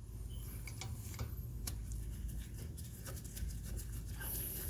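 Faint, irregular metallic clicks and taps of a brake caliper bolt being lined up and threaded in by hand, over a low steady hum.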